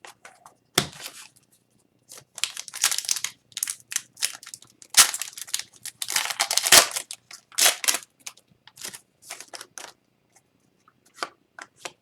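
Foil wrapper of a hockey card pack being torn open and crinkled in a run of sharp rips, followed near the end by a few light clicks of cards being handled.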